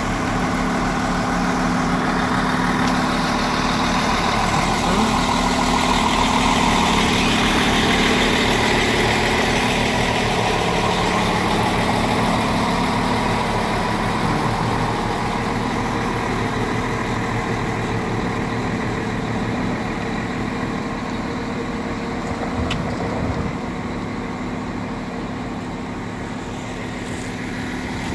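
Diesel engine of a PESA SA132 railcar idling at a standstill: a steady low hum.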